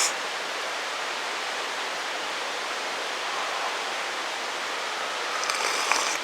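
A mountain stream rushing steadily, with a few brief small sounds near the end.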